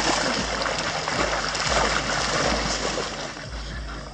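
Water splashing and sloshing as dogs paddle and wade through shallow water, loudest at first and easing off toward the end.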